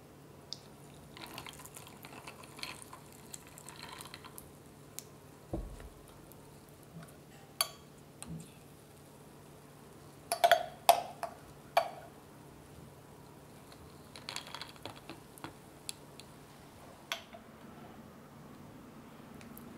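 Coffee poured from a stovetop moka pot into a tall glass of milk and ice, a soft pouring sound, followed by a dull knock. Ice cubes clink sharply against the glass several times, the loudest sounds here, and frothed milk is poured in, a brief soft pouring.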